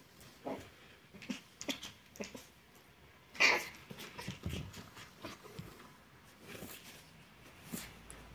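Chihuahua puppy making short, scattered play noises as it tussles in a duvet, with the bedding rustling. The loudest comes about three and a half seconds in.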